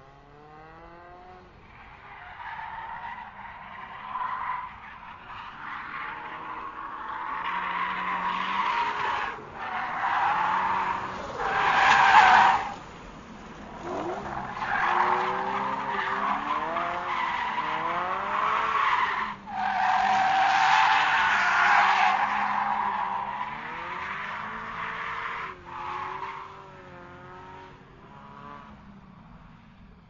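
Racing car drifting: tyres squealing in long skids while the engine revs climb and drop again and again through the gears. The squeals break off sharply several times, and the loudest is about twelve seconds in.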